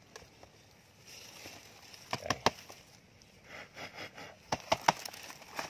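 Sharp clicks and knocks from a snake trap being handled as a snake is taken out of it. They come in two short clusters, about two seconds in and again near the five-second mark.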